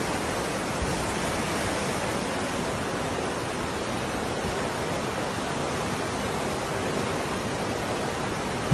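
Floodwater rushing down a street, a steady, unbroken rush of water.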